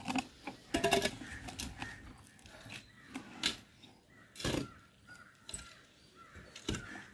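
Hands scooping and rubbing a coir pith and soil mix in a plastic tub: scattered soft scrapes and a few sharper knocks, the loudest about three and a half and four and a half seconds in.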